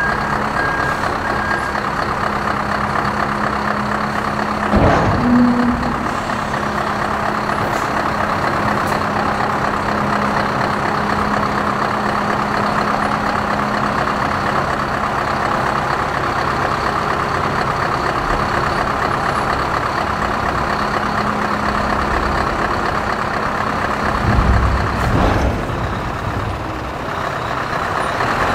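Scania R620 truck's V8 engine running steadily under load, driving the hook-lift hydraulics with a steady hum as the container is lowered off the truck. Loud metal clunks come about five seconds in and again near the end, when the hum drops away.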